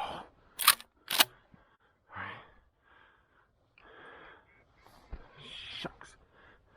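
Two sharp cracks about half a second apart near the start, followed by softer, scattered noises.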